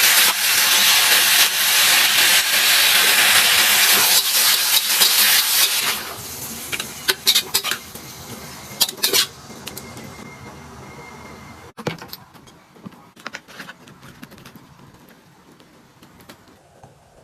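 Food frying in a hot wok, a loud sizzling hiss that falls away about six seconds in. Then come a few sharp metal clinks of a utensil against the pan, and faint light clatter.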